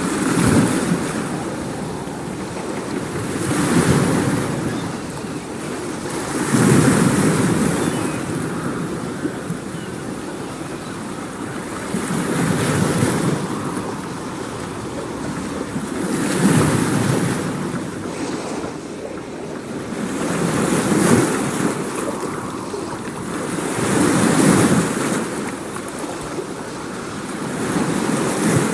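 Surf: waves washing in one after another, the rush of water swelling and fading every few seconds.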